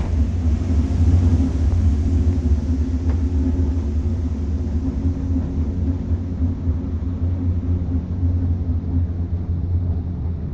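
Steady low rumble and hum of a gondola cable car travelling along its cable, heard inside the cabin, easing slightly over the stretch, with a faint click about three seconds in.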